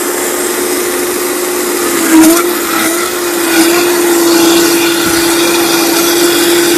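Electric blender running steadily, whipping water and soy lecithin into a thickening emulsion. The motor's pitch sags briefly about two seconds in.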